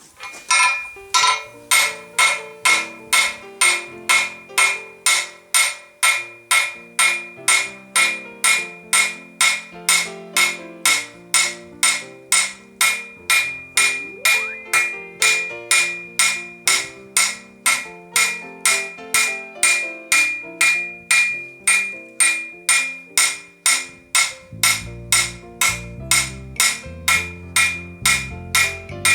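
Hand hammer striking hot steel flat bar on an anvil in a steady rhythm of about two blows a second, each blow leaving a ringing tone, as the ends of a latch handle blank are spread out. Background music plays underneath.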